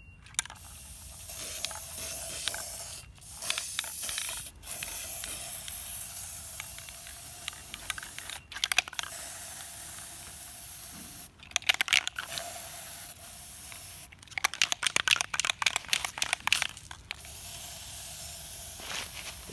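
Aerosol spray paint can (Rust-Oleum Universal metallic paint-and-primer) hissing in long sprays with short pauses. Several spells of fast rattling come in between, most around the middle and near the end: the mixing ball clattering as the can is shaken.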